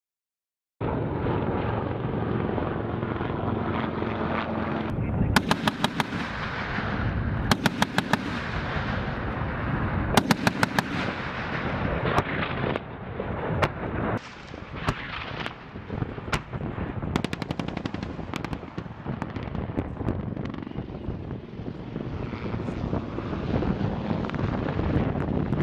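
After a moment of silence, an AH-1Z Viper's M197 20mm three-barrel Gatling cannon fires short bursts of rapid shots, three bursts a couple of seconds apart, over a steady rumble, followed by scattered single shots and impacts.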